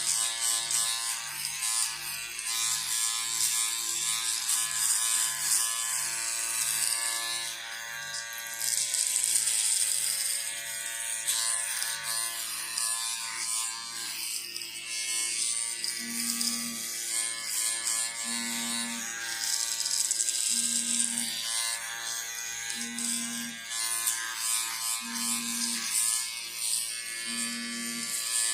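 Electric shaver running steadily: a motor hum with a high buzzing hiss that swells and fades every few seconds.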